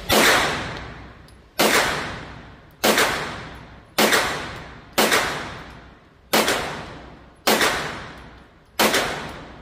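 Walther PDP Pro pistol fired in slow, steady single shots, eight in all about one every second and a quarter, each shot echoing and dying away in the indoor range.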